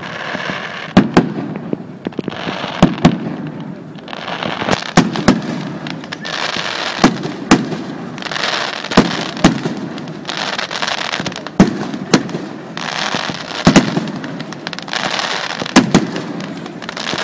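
Aerial firework shells bursting in a display: sharp bangs about every one to two seconds, some in quick pairs, with a crackling hiss in the gaps between them.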